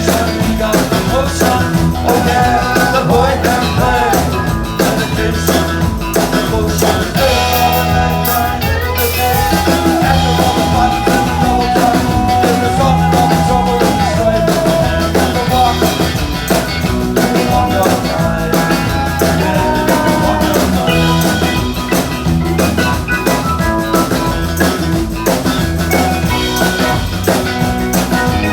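A live rock band plays a song with a steady beat on drum kit and bass, and a sustained melody line over it.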